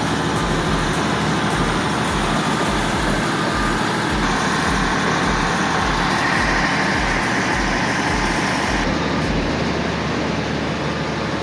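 Large wood chipper running, a dense steady mechanical noise of engine and cutting drum. Its character shifts abruptly about four seconds in and again about nine seconds in.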